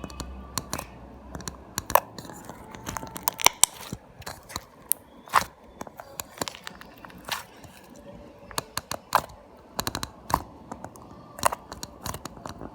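Homemade slime being squeezed and stretched by hand, giving irregular sharp clicks and pops.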